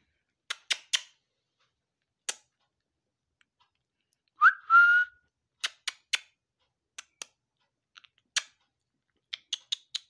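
Scattered short, sharp clicks. About halfway through, one loud whistle rises quickly in pitch, then holds steady for a moment.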